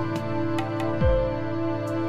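Ambient background music: sustained synth chords with light ticking percussion and a deep falling bass hit about a second in.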